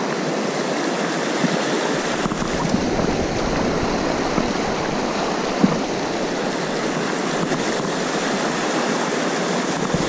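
Fast mountain-river whitewater rushing over rocks in shallow pocket water, a steady loud rush, with a few faint ticks, the sharpest about halfway through.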